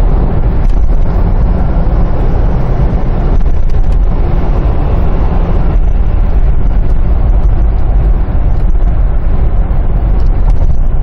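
Steady low rumble of engine and tyre noise heard inside the cabin of a car driving at road speed.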